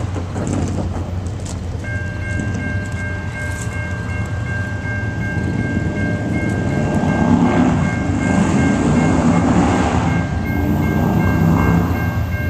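A grade crossing bell starts ringing about two seconds in, a rapid, even ding repeating a few times a second, as an approaching diesel-hauled freight train's rumble grows steadily louder from about halfway through.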